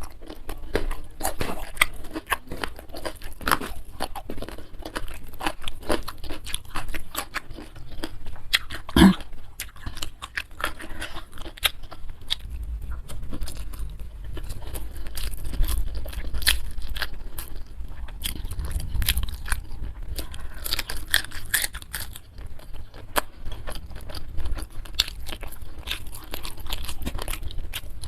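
Close-miked chewing and crunching of food, with irregular crisp bites throughout and one sharper crunch about nine seconds in.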